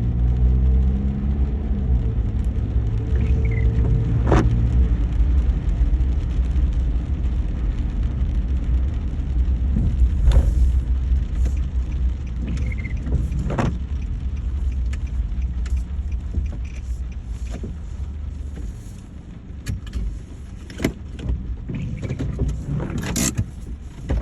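Car on the move: a steady low rumble of engine and road, with the engine note dropping in pitch at the start. The rumble eases about 18 seconds in, and scattered sharp clicks and taps follow.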